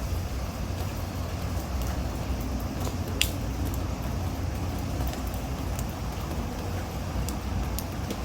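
Typhoon wind and rain: a steady low rumble of wind with a hiss of rain and scattered taps of drops, one sharper tap about three seconds in.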